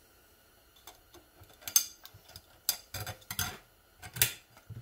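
Steel Ford C6 transmission parts (clutch drum and snap ring) clinking and tapping against each other as they are handled: about eight short, sharp metallic clicks, the loudest a little under two seconds in and about a second before the end.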